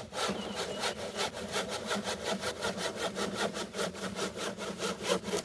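Handsaw with a Japanese-style tooth set cutting through a wooden board in quick, even back-and-forth strokes, about four to five a second.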